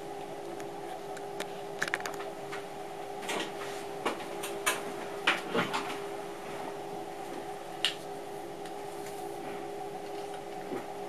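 Steady electrical hum in the cab of an NS MAT64 electric train, with scattered light clicks and knocks: a quick cluster about two seconds in, several more between four and six seconds, and a single sharp one near eight seconds.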